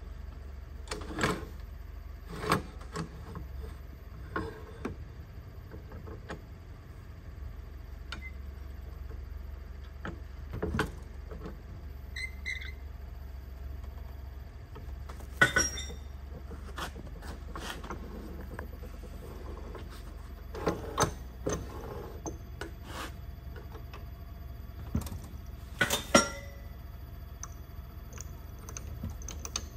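Scattered metal clicks and clunks as the Turncrafter Commander mini wood lathe's tool rest and tailstock are moved and locked with their levers, over a steady low hum; the sharpest knocks come about halfway through and again near the end.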